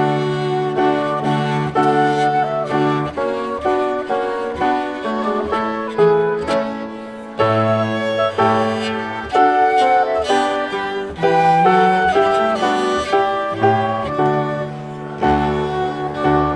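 Live chamber quartet of grand piano, flute, violin and cello playing together, the cello holding low notes under the violin, flute and piano.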